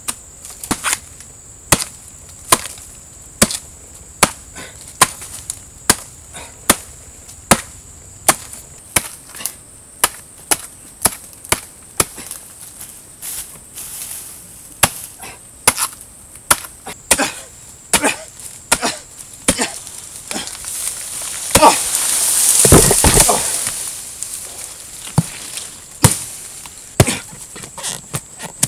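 An axe chopping into a palm trunk: sharp knocking blows, about one a second, faster in places. About two-thirds of the way through there is a loud rushing crash of fronds and wood as the palm falls. The chopping then goes on.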